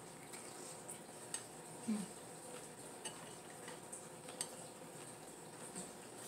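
Quiet eating sounds: scattered soft clicks and taps as crawfish and peppers are dipped into a glass bowl of sauce with a spoon in it, along with chewing. A brief low sound about two seconds in is the loudest moment.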